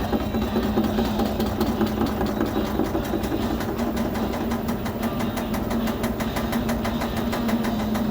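LG commercial washing machine running, a steady motor hum with a fast, even ticking as the drum turns.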